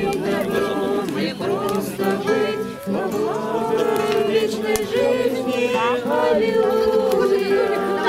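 A mixed group of men and women singing a religious song together from songbooks, with two acoustic guitars strummed along. The voices hold long notes and glide between them without a break.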